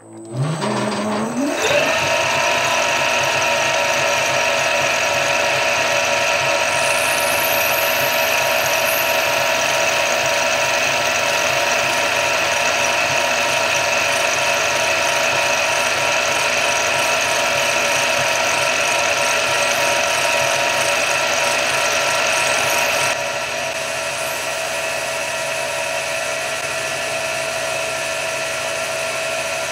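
Centec milling machine, driven by a three-phase motor on an inverter, spinning up over about two seconds with a rising whine, then running steadily with a 3 mm end mill in the spindle. About 23 seconds in it drops a little in level and runs on steadily.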